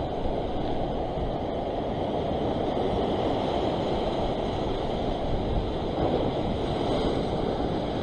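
Ocean surf breaking and washing around a rock ledge: a steady, even rush of waves.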